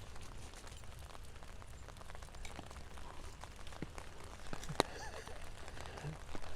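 Steady rain patter with many small drop ticks, and one sharp click about two-thirds of the way through.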